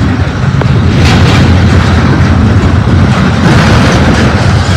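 Double-stack intermodal well cars rolling past close by: a loud, steady rumble of steel wheels on rail.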